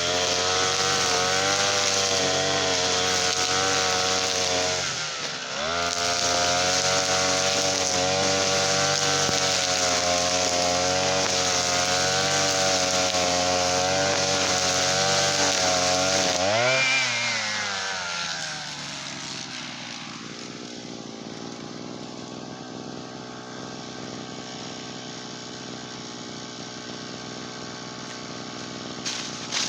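Small two-stroke engine of a garden machine (brush cutter or portable Easyman engine) running at high revs. The revs dip briefly about five seconds in and recover. About seventeen seconds in the engine winds down and the sound settles to a much quieter steady hum.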